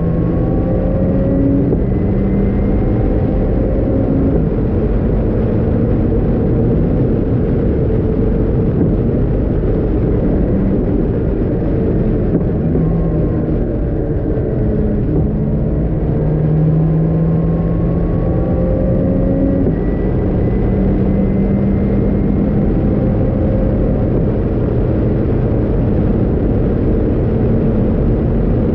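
Caterham R500 engine heard from the open cockpit, accelerating hard with several rising sweeps in pitch between gear changes, under heavy wind and road noise at high speed.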